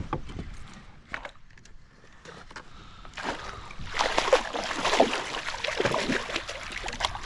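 Water splashing and sloshing, starting about three seconds in, as a hooked bass thrashes at the surface beside a kayak while it is being landed. A few light knocks and clicks come before it.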